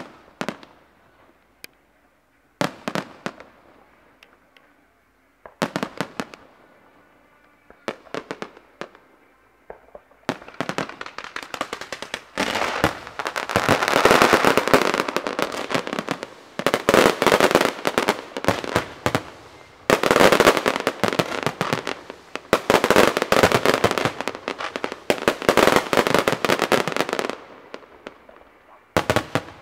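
Fireworks going off: single sharp bangs a few seconds apart, then from about ten seconds in a dense, continuous barrage of rapid crackling explosions that eases off near the end.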